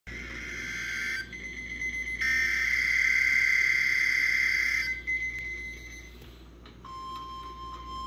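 NOAA Weather Radio test broadcast through a Midland weather radio's speaker. It opens with the EAS/SAME digital header: harsh two-tone data screeches in two bursts, the second longer and louder, ending about five seconds in. About seven seconds in a steady single alert tone begins.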